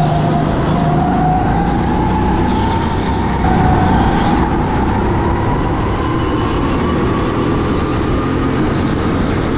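Racing go-kart's engine heard on board at racing speed over steady road and wind noise. Its note dips briefly near the start, then climbs slowly and steadily as the kart accelerates.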